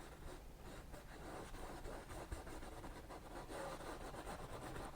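Filbert brush scrubbing oil paint onto a stretched canvas: faint, quick scratchy strokes of the bristles.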